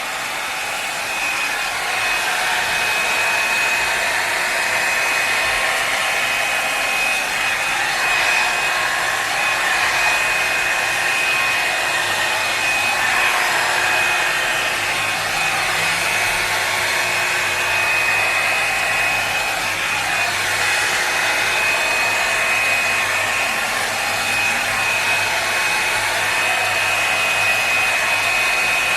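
Revlon One-Step Hair Dryer and Volumizer hot air brush running steadily as it is brushed through damp hair to dry and straighten it: a constant rush of air with a steady high whine.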